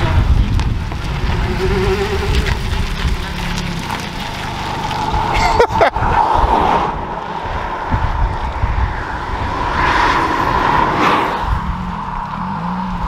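Honda Civic Type R FN2's 2.0-litre four-cylinder engine running as the car drives slowly past, louder about six seconds in and again around ten to eleven seconds. Heavy wind rumble on the microphone throughout.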